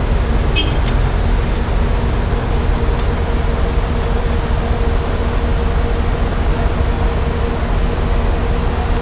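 A vehicle engine idling steadily, with a low rumble and a steady hum, heard from inside the cab of an armored truck. Three faint, short high chirps sound in the first few seconds.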